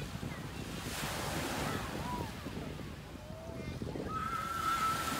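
Small waves washing on the shore, with wind buffeting the microphone and faint voices calling out in the distance.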